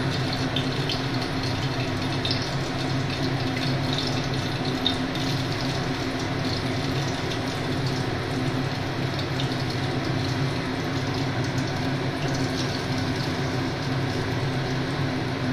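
Hot oil in a kadai sizzling as lumps of cabbage-fritter batter are dropped in by hand, over a steady low hum.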